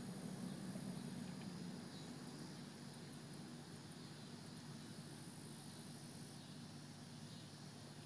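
Faint outdoor background: a steady low hum with a high insect buzz, like crickets, that swells twice and fades. No thunder is heard.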